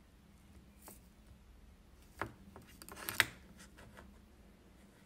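A cockatoo handling a plastic pen on a desk, knocking and clicking it against the desk and paper: a faint click about a second in, a clear knock about two seconds in, then a quick cluster of clicks and taps a second later, the last one the loudest.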